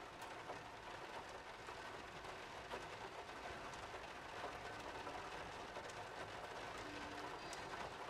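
Faint, steady noisy hiss with scattered small clicks, and two or three brief faint tones in the second half.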